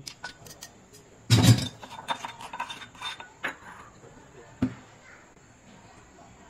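Metal spoon scraping and clinking inside a steel mortar as ground chilli-garlic paste is scooped out. There is a heavier knock about a second and a half in, a few light clinks after it, and a sharp tap near five seconds in.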